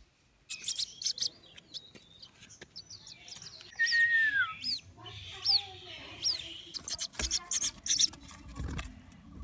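White-breasted waterhen chicks peeping: a run of short, high, downward-sliding cheeps, with one longer falling whistle about four seconds in.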